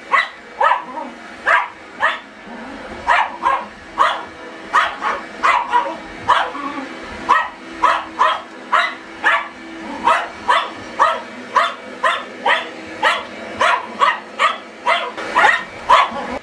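Welsh terrier barking repeatedly at a vacuum cleaner, about two sharp barks a second without a break. A faint steady hum runs underneath.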